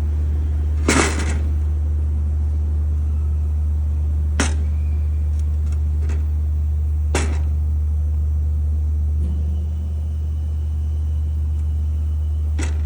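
Fiber laser welding machine running with a steady low hum, broken by four short sharp bursts, the longest about a second in.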